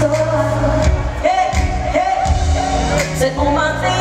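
Live R&B song played through a concert PA: a sung melody with long held notes over bass and drums.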